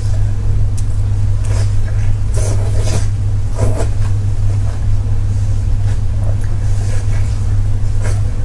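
Irregular bursts of chewing and biting from someone eating, over a loud steady low hum.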